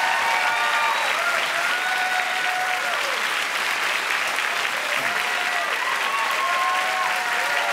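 Studio audience applauding, with long whoops and cheers from several voices over the clapping.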